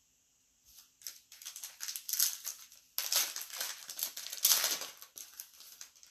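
Foil wrapper of a trading-card pack crinkling and being torn open by hand: a dense, irregular crackle lasting about four seconds, loudest in the second half.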